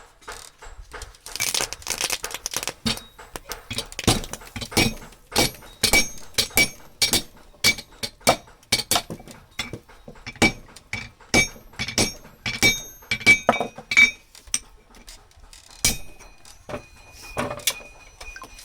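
Hammer blows on steel at the anvil, struck irregularly about once or twice a second, each with a short metallic ring, and a brief noisy rush about a second in.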